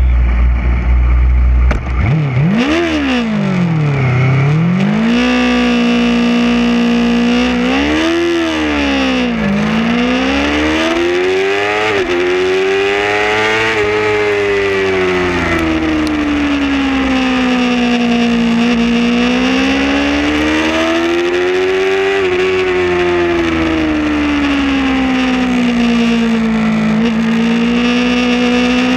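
Sport motorcycle engine heard onboard at a race start. A deep rumble, then about two seconds in the engine revs up and drops back sharply a few times as it pulls away. After that its note rises and falls smoothly with the throttle through the corners.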